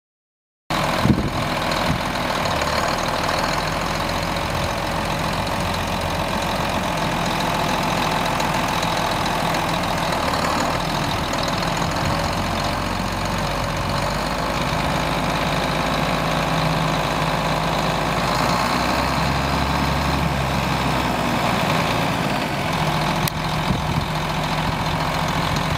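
John Deere 4840's turbocharged six-cylinder diesel engine running steadily at idle.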